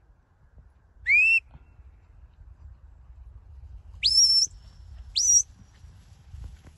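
A sheepdog handler's whistle commands to a working dog: three short, sharp whistles, each sliding upward in pitch, at about one second in, at four seconds, and just after five seconds. The second one levels off and is held briefly at the top.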